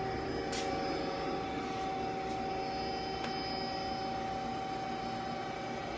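Steady hum of a powered-up but idle Okuma ES-L10 CNC turning center: several held tones over a low rumble, with a couple of faint ticks.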